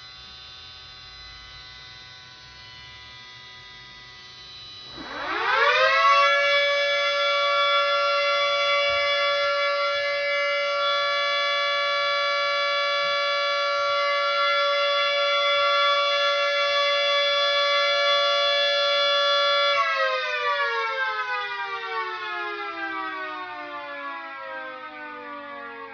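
Small motor-driven rotor siren sounding a steady alert: it spins up quickly to a loud, steady wail about five seconds in, holds it for about fourteen seconds, then winds down slowly with the pitch sliding lower. A faint falling siren tone is heard before the spin-up.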